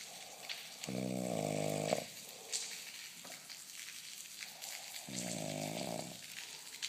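A man snoring in his sleep: two loud snores about four seconds apart, each lasting about a second.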